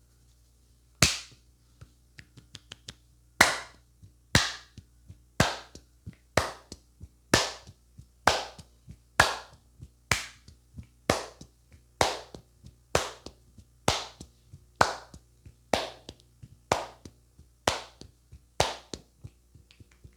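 A barber's hands slapping rhythmically during a head massage: about eighteen sharp, loud slaps, roughly one a second, each with a softer tap after it, starting about a second in and stopping near the end.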